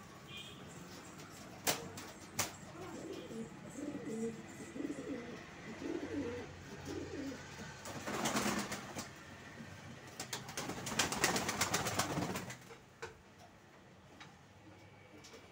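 Pigeons cooing in low, repeated phrases. There are two sharp clicks before the cooing starts, and two louder stretches of rough rustling noise in the second half.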